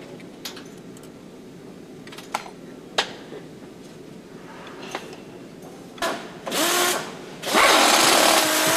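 Motorcycle assembly-line machinery: a low hum with a few sharp metal clicks, then from about six seconds in three loud bursts of a power tool hissing and whirring, the last one held.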